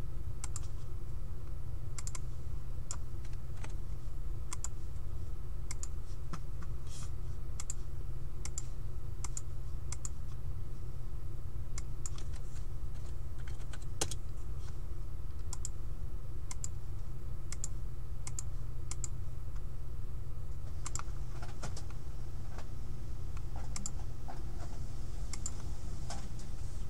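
Computer keyboard typing: irregular keystrokes and clicks, some in quick runs, over a steady low hum.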